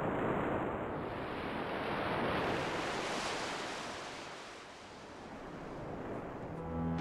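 A rushing, surf-like noise swells twice and fades. Music with low bowed strings comes in near the end.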